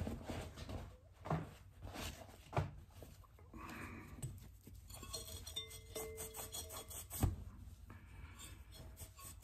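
Faint handling of tools and the rifle barrel: a few light clicks and knocks, the clearest about two and a half and seven seconds in, with quiet rubbing in between.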